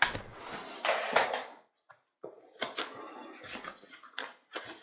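Cardboard graphics-card retail box handled by gloved hands: scraping and rubbing on the box with a few light knocks, loudest in the first second and a half, then more handling after a short pause.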